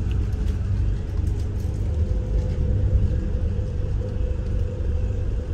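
Steady low engine rumble of a passenger river boat, with a constant hum over it.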